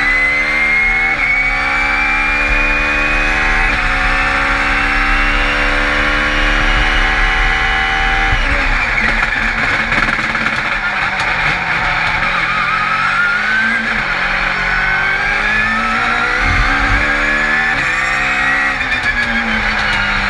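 Lexus RC F Super GT500 race car's turbocharged four-cylinder engine, heard from inside the cockpit, accelerating hard with two quick upshifts in the first few seconds. About eight seconds in the note drops away under braking and downshifts, then climbs again through the gears, with a high whine rising along with the revs.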